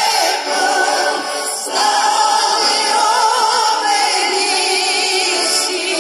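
Women's folk choir singing, amplified through stage loudspeakers, with long held notes carrying vibrato. There is a brief breath between phrases about a second and a half in.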